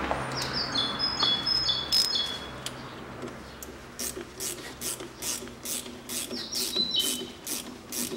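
A ratchet wrench clicking steadily, about three clicks a second, from about four seconds in, as the puller's bolts are screwed into the crankshaft pulley. A small bird chirps in short stepped high notes during the first half and again briefly near the end.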